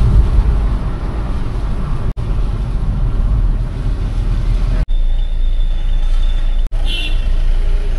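Low, steady road and engine rumble of a vehicle on the move, broken by several abrupt cuts. A thin steady whine runs through the middle, and a brief high-pitched sound comes near the end.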